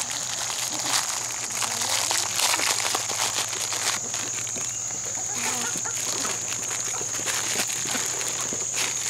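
Flock of chickens feeding on scattered grain, with many small pecking taps and scuffles in the dirt, over a steady high-pitched insect drone.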